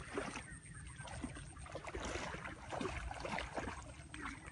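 Legs wading through shallow water, with irregular splashing and sloshing over a low rumble.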